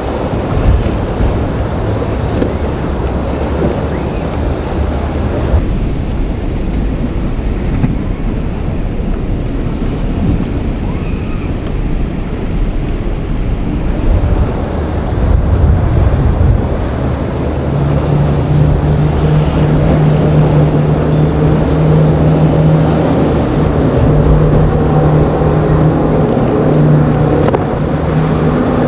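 Waves churning and breaking around a boat's hull in rough inlet water, with wind buffeting the microphone. From a little past halfway, a steady boat engine drone rises over the water noise.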